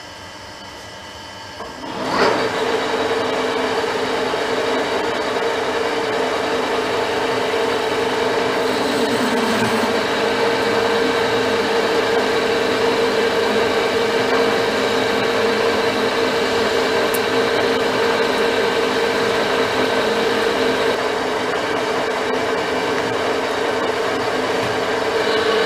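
Metal lathe switched on about two seconds in with a click, then running steadily with a constant whine while turning a round steel bar.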